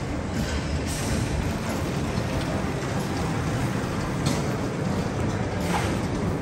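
Steady low rumbling background noise of a large exhibition hall, with a few faint knocks.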